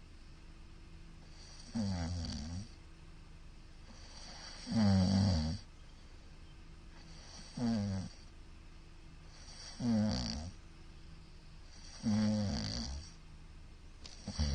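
A man snoring loudly in his sleep. There are six short, harsh snores, about one every two and a half seconds, the third the loudest, with quieter breathing between them.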